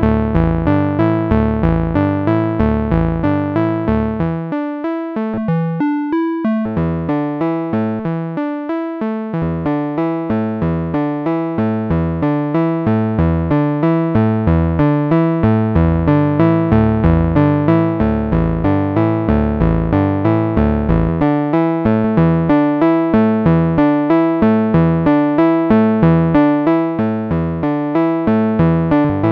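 Moog Subharmonicon analog synthesizer running its step sequencer: a rapid, even pattern of short pitched notes with deep subharmonic bass tones underneath. About four seconds in, the bass drops away for a few seconds and then comes back in as the sub-oscillator levels are changed.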